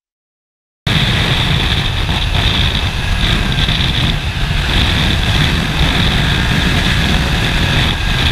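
Yamaha MT-09 three-cylinder motorcycle engine running under way, with a steady rush of wind noise; it cuts in suddenly about a second in after silence.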